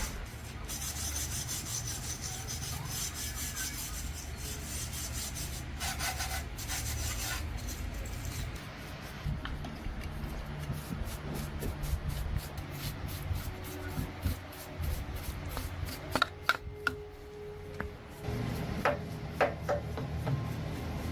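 Repeated rasping scraping strokes on a part of a rice milling machine being restored, as in filing or scraping it by hand. They come fast and evenly at first, then quieter, with a few sharp clicks near the end.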